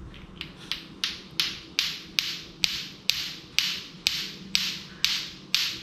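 Lato-lato clacker toy: two hard plastic balls on a string being swung so they knock together. The clacks come in a steady rhythm of about two to three sharp clacks a second.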